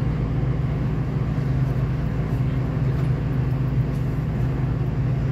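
Steady low drone of a V/Line diesel train standing at a platform, heard from inside the carriage.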